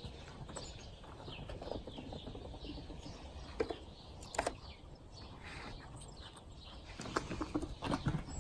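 Quiet outdoor ambience with faint small-bird chirps, and a few sharp soft clicks and scrapes as a squirrel grabs a nut at a window frame.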